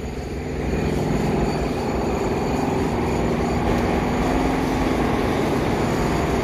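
Loud, steady low rumbling background noise with a droning hum in it, swelling about a second in and then holding steady, echoing through the underground concourse.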